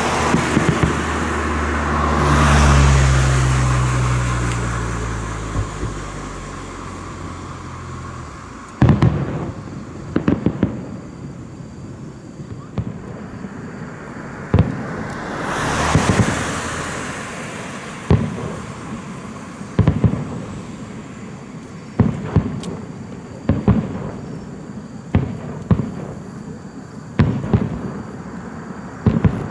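Fireworks bursting overhead: a long series of sharp bangs and cracks, a few a second at the busiest, with two long swells of rushing noise, one near the start and one about halfway, and a low rumble over the first few seconds.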